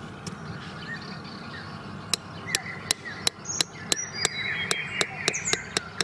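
A metal stake being hammered into hard ground, sharp metallic strikes at about three a second, starting about two seconds in. Birds chirp in the background.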